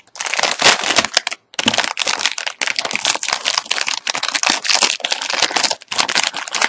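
Crinkling and crackling of a HeroClix foil booster pack as it is handled and torn open, a dense run of crackles with a short break about a second and a half in.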